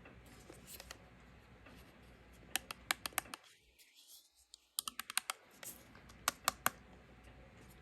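Sharp clicks and taps from handling a Blink video doorbell and its plastic back cover, in three short clusters about a second and a half apart.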